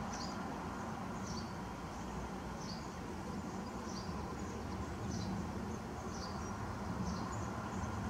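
House sparrows chirping: short, high, single chirps about once a second, over a steady low background rumble.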